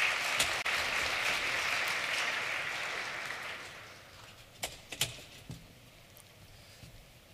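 Audience applauding in a large hall, fading out about four seconds in, followed by a few sharp clicks.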